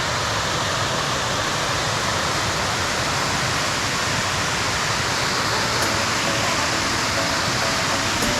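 Waterfall's lower cascade rushing steadily: a continuous, even noise of falling water.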